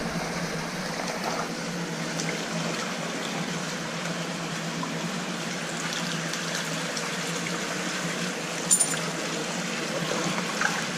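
Creek water running and trickling steadily, with one short, sharp sound about nine seconds in.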